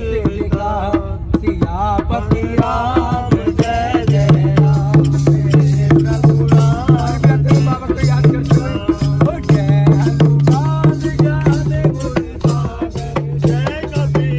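Dholak played by hand in a quick rhythm, backing lively singing, with a steady low drone held underneath from about four seconds in.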